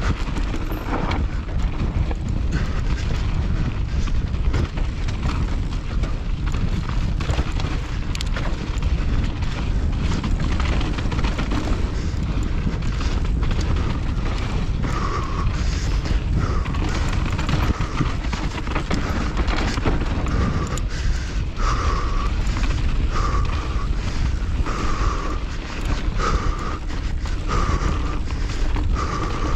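Mountain bike descending a loose, rutted dirt trail at race pace: a constant rumble of wind on the microphone with the bike's tyres, frame and chain clattering over the rough ground in many quick knocks.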